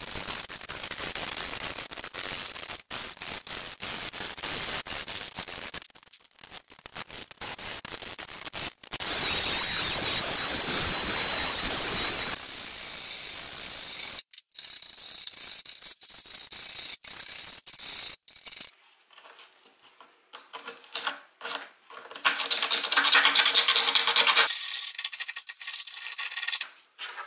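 Rubbing and hand-sanding on the painted, rusty steel door bottoms of a Land Rover Series III with an abrasive pad and sandpaper, heard as a series of short clips cut together. One stretch about ten seconds in carries a steady high whine over the scraping.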